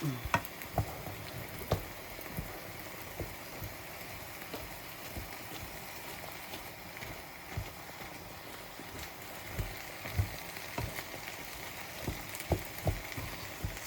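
Mince and chopped vegetables frying in a pan with a steady sizzle, with scattered clicks and knocks throughout.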